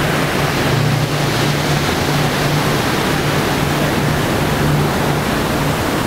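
Canal lock chamber filling by gravity: turbulent water boiling up and churning in a loud, steady rush, with a steady low hum underneath.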